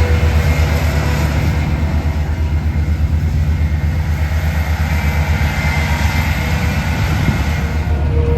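Large self-propelled sweet corn harvester (OXBO 8430) running in the field while picking, its diesel engine giving a steady heavy hum with a rapid low pulsing.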